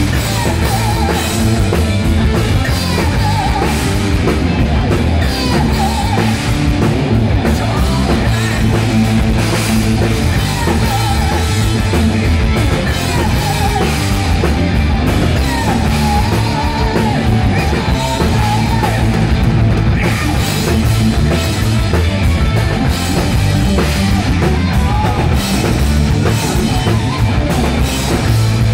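A live rock band playing loudly: electric guitars and a drum kit, with a lead singer's voice over them.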